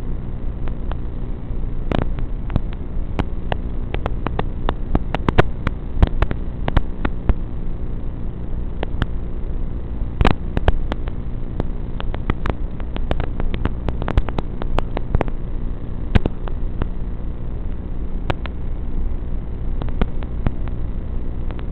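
Steady low electrical buzz with frequent sharp crackles and clicks, typical of the audio track of an analog FPV goggle recording. The clicks come thickest in the middle stretch.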